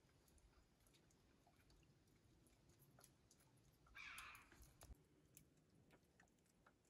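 Very faint eating sounds: chewing and small clicks of hands and food on plates, with one brief louder scratchy noise about four seconds in.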